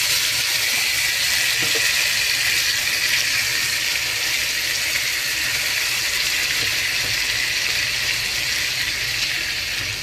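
Marinated chicken pieces sizzling steadily in hot oil and melted butter in a non-stick kadai over medium heat.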